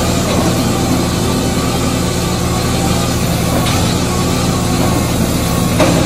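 Bobcat skid steer's diesel engine running steadily at idle, a constant low drone, with a couple of faint brief clicks late on.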